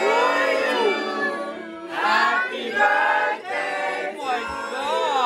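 Several voices singing together, with long rising-and-falling sung notes.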